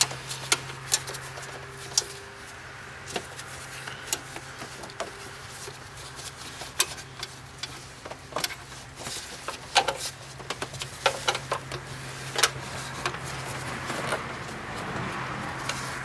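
Irregular sharp clicks and rattles from gloved hands feeding a hood release cable along a car's wiring harness and past its plastic clips, over a steady low hum.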